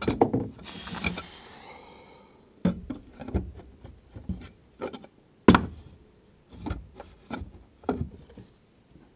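About a dozen sharp knocks and taps at irregular intervals, with a metallic jangle and clatter in the first second or two. This is work on wooden roof framing and metal hurricane clips.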